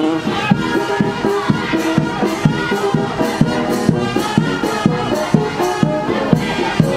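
Brass band music with a steady drumbeat, about two beats a second, under held brass notes.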